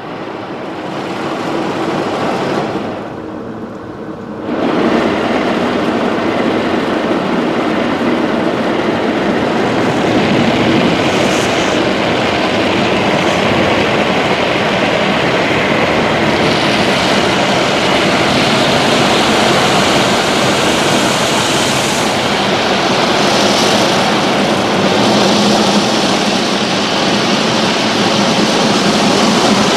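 Rotating brushes of a Christ Varius automatic car wash scrubbing over the car with water, heard from inside the cabin: a loud, steady rush of brush strips and water against the body and glass. It dips briefly about three seconds in, then comes back fuller.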